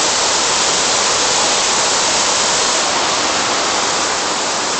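Water pouring down a man-made waterfall in a steady rush.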